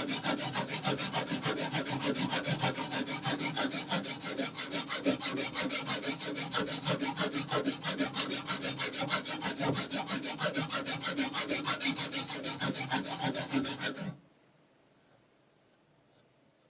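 Knife blade being sharpened on an abrasive sharpening stone: rapid, even rasping strokes, several a second, that stop abruptly about fourteen seconds in.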